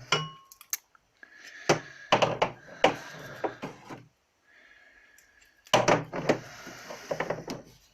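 Removed windscreen wiper linkage being handled and turned over: scattered knocks and clicks of the metal part, with stretches of scraping.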